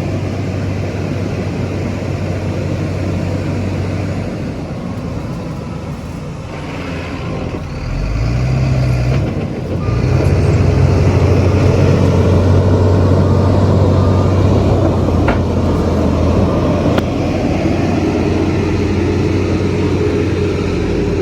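Heavy diesel earthmoving machinery running: a bulldozer and dump trucks at work. The engine drone deepens and grows louder about eight to ten seconds in, then holds steady.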